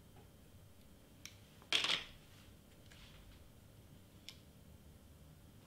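Cardstock pieces being handled and pressed together by hand, faint overall: a short papery rustle just under two seconds in, with a light click before it and another a couple of seconds later.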